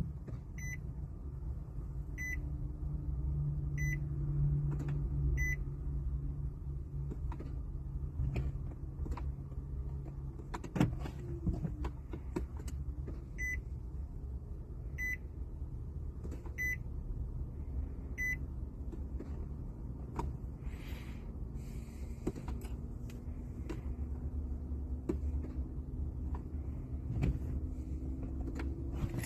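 Infiniti G37x warning chime beeping four times about one and a half seconds apart, then four more some ten seconds later, over a low hum and scattered clicks. The engine does not crank.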